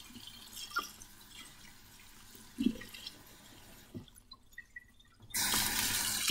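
Kitchen faucet running a thin stream of water onto peeled roasted green chiles in a stainless mesh strainer, with a few soft knocks as the chiles are handled. Near the end the water gets much louder for about a second.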